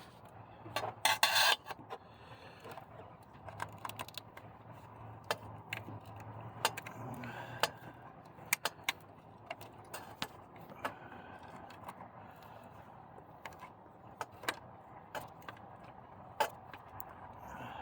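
Metal hand tools and engine parts clinking and scraping during engine repair: scattered sharp clicks, with a short dense rattle about a second in.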